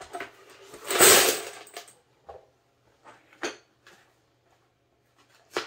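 Loose .223 rifle cartridges poured into a steel ammo can, clattering together in one loud rush about a second in, followed by a few single clinks.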